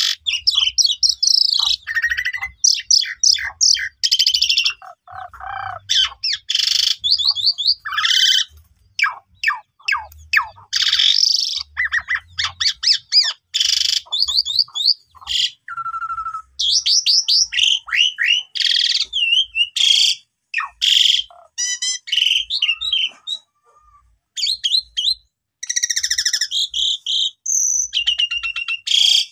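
Javan pied starling (jalak suren) singing in full song: a long run of fast warbled phrases, clear whistles and harsh notes, broken by brief pauses.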